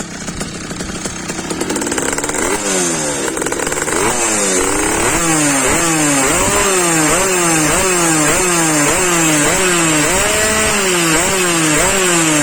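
Tomos moped's two-stroke engine, fitted with an Airsal kit and a new exhaust, revved in quick repeated blips. The pitch swoops up and falls back again and again, getting louder over the first few seconds.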